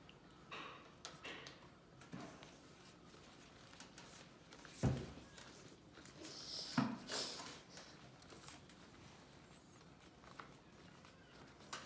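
A spoon stirring a sticky homemade slime mix of glue and contact-lens solution in a small plastic dish: faint scraping and handling noises, with two louder knocks about five and seven seconds in.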